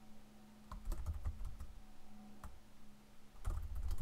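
Computer keyboard being typed on: scattered keystrokes, then a quick run of typing near the end, over a faint steady hum.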